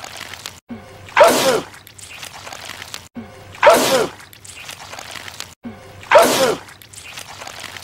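A man's loud, wet sneeze, the same sneeze looped three times about every two and a half seconds. Each has a short vocal lead-in just before the burst.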